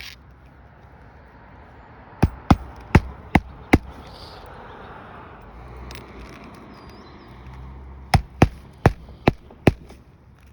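Hammer driving roofing nails: two runs of five sharp blows each, about three a second, the second run starting some four seconds after the first, as a replacement shingle is nailed in.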